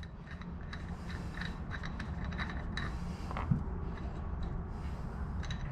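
Light, scattered metallic clicks and scrapes as the nut is taken off the end of the Polaris Ranger's rear CV axle, over a low steady hum.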